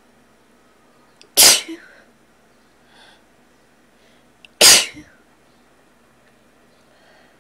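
A person sneezing twice, about three seconds apart, each a short loud burst, brought on by a tickly nose.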